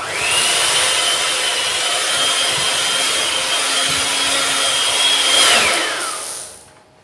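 Electric hand mixer with dough hooks running through stiff cookie dough in a glass bowl. The motor starts with a rising whine, runs steadily, then winds down and stops about six seconds in.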